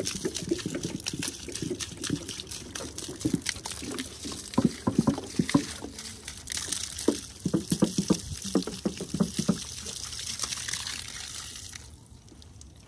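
Water poured from a plastic jug onto a garden bed, splashing and trickling onto the soil and plants; the pouring dies away near the end.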